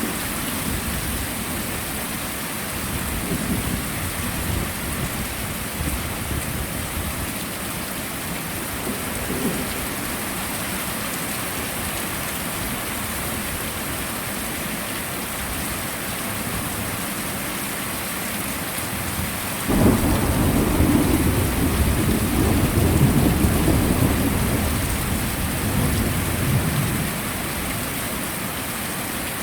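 Heavy rain falling steadily, with thunder rumbling. A long, deep roll of thunder starts suddenly about two-thirds of the way through and dies away over some seven seconds, after fainter rumbles earlier on.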